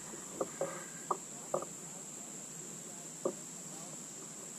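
A few light clicks and knocks from handling a caught fish and a crankbait in a kayak, over a steady high-pitched whine.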